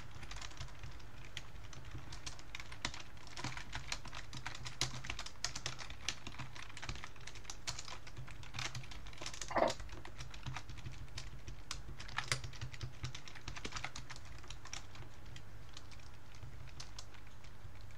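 Typing on a computer keyboard: a run of irregular key clicks as code is entered. A steady low hum lies under it, and one brief louder sound comes about halfway through.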